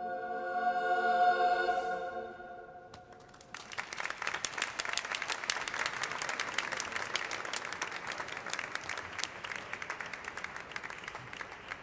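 A choir holds the final chord of a spiritual, and it dies away in the long reverberation of a large stone cathedral. About three and a half seconds in, the audience breaks into applause that carries on steadily.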